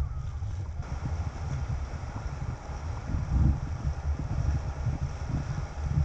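Wind buffeting the microphone: an uneven low rumble that rises and falls in gusts, strongest about halfway through, over a faint steady hiss.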